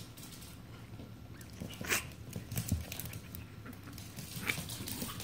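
Newborn Yorkshire terrier puppy making a few short squeaks and mouth clicks while being fed from a syringe.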